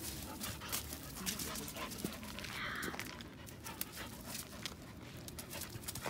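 Two Samoyeds play-wrestling in mud: dogs panting and scuffling, with many short scrapes and clicks and a brief rough sound about two and a half seconds in.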